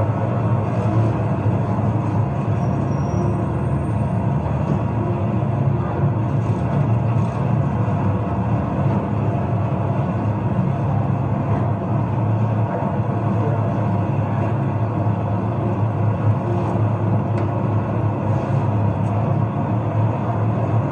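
Steady low engine rumble of motorcade SUVs pulling up and idling, with faint scattered clicks, heard through a television's speaker.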